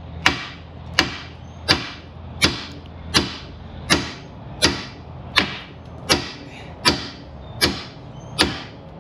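Hand hammer striking the end of a steel bolt in a steady rhythm, about twelve blows one every 0.7 seconds, each with a short metallic ring. The blows are mushrooming the bolt's end.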